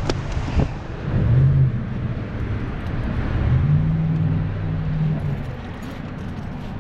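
Car driving: steady engine and road rumble, with the engine note rising about a second in and again at about three and a half seconds, then holding.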